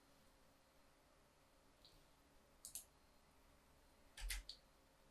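Computer mouse clicks over near silence: a quick double click about two and a half seconds in, and another short cluster of clicks about four seconds in, with a faint low thud under them.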